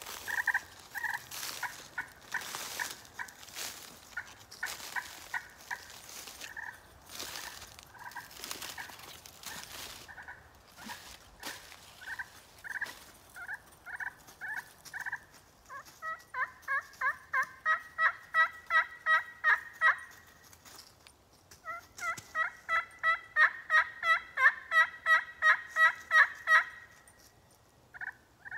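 Slate-over-glass turkey pot call worked with a hickory striker. For about fifteen seconds it gives soft, evenly spaced short notes with some scratchy rustling under them. Then come two runs of quick, loud turkey yelps, the second starting about twenty-two seconds in, each run building in loudness.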